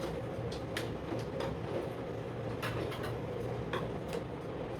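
Scattered light clicks and taps, a handful over a few seconds, from a sewing machine and its work being handled while the machine stands still, over a low steady hum.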